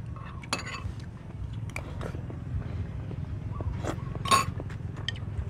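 Metal spoons clinking against ceramic bowls and plates while eating: a handful of separate short clinks, the loudest about four seconds in, over a steady low rumble.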